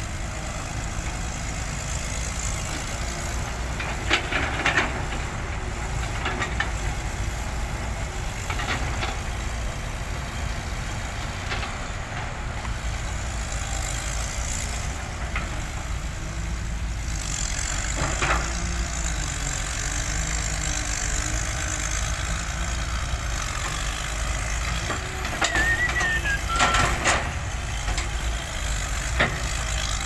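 Caterpillar hydraulic excavator's diesel engine running steadily as it digs through a pile of sand and dirt and swings its bucket, with several separate clanks and knocks from the bucket and boom. There is a brief squeal late on.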